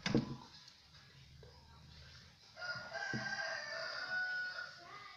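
A rooster crowing once, starting about two and a half seconds in and lasting about two seconds. A sharp knock of handling comes right at the start.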